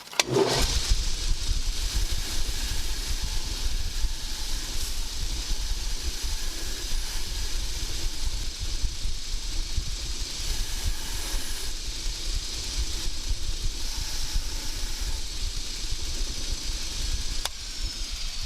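Powered wire wheel running and brushing a soldered copper cable lug clean, a steady whirring hiss that starts about half a second in and stops near the end.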